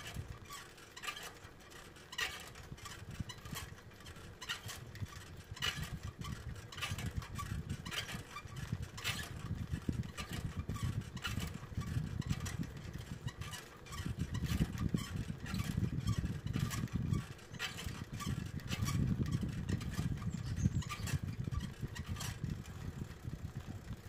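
Outdoor ambience: a low, uneven rumble that swells and fades, with many scattered light clicks through it.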